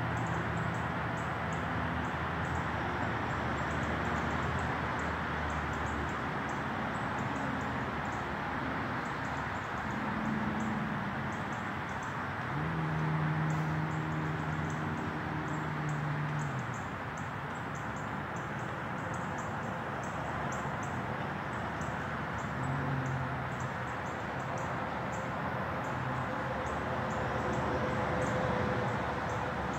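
Outdoor street ambience: a steady broad hiss with frequent short high chirps. A low hum joins for a few seconds near the middle.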